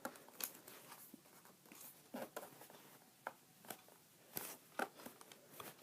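Faint, scattered clicks and scrapes of a memory stick being pushed and worked into an iMac's memory slot, where it is hard to seat.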